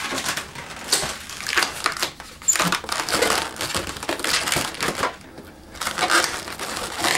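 Latex 260 twisting balloons rubbing and squeezing against each other and against the hands as they are wrapped and twisted into a pinch twist, an irregular scrunching rub that comes and goes.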